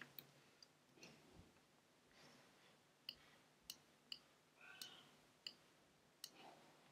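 Faint computer mouse and keyboard clicks: a handful of short, isolated clicks spaced about a second apart over near-silent room tone.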